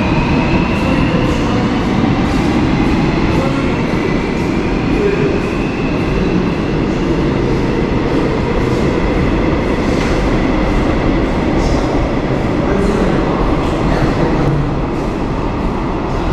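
Seoul Subway Line 8 (Byeollae Line) train running at the platform behind closed platform screen doors: a steady heavy rumble of wheels on rail, with a motor whine that glides in pitch in the first few seconds and a regular run of light clicks.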